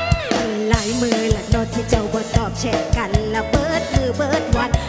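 Live band playing a mor lam (Isan folk-pop) song, with a steady drum beat of about two and a half hits a second under a wavering, bending lead melody.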